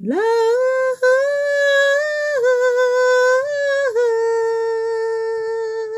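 A woman singing a slow lullaby on "la", sliding up into the first note, with a brief break about a second in, stepping through a few notes and ending on a long held note.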